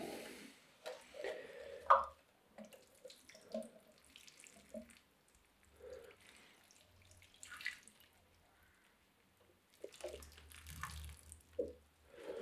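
Water from a watering can's rose pattering and dripping onto the gravelly potting mix of a bonsai pot, faint and uneven, with short quiet gaps.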